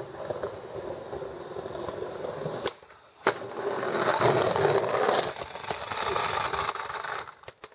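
Skateboard wheels rolling over stone paving, in two stretches broken by a short gap about three seconds in, the second stretch louder.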